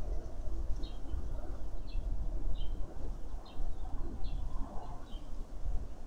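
Wind buffeting the microphone with a loud, rough low rumble, and a bird giving short, high chirps about once a second.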